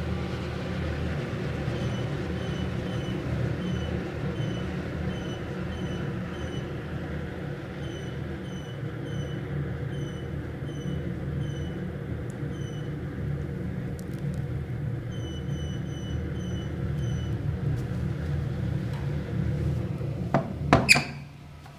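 Wood-gasification (pyrolysis) boiler burning with its lower combustion-chamber door open: a steady low roar of the gas flame jetting down through the nozzle, with a faint steady hum. Near the end the steel firebox door is banged shut with a few sharp knocks, and the roar drops to a muffled rumble.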